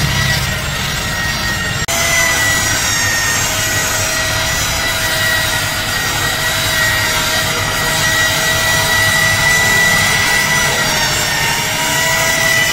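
Electric rotary car polishing machine running with a steady high whine whose pitch wavers slightly. The sound changes abruptly about two seconds in.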